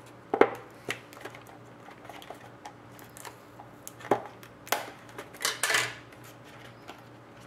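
Sports card packs and their box being handled on a table: scattered light clicks and knocks, with a brief rustling slide a little after five seconds in.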